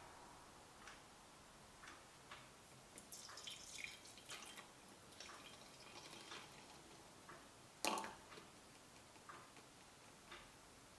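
Quiet kitchen sounds while making matcha: small drips and clicks about once a second, a short busier patch of watery clinking about three to four seconds in, and one louder knock about eight seconds in.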